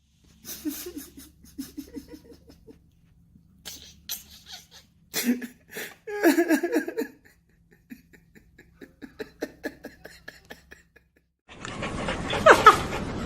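A person laughing, in short bursts, mixed with faint clicks and small animal noises across several separate clips.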